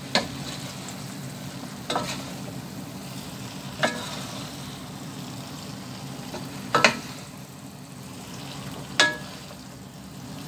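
Spaghetti and chicken in sauce being stirred and tossed in a frying pan over the heat, with a steady low sizzle. About five sharp knocks of the spatula against the pan come a couple of seconds apart.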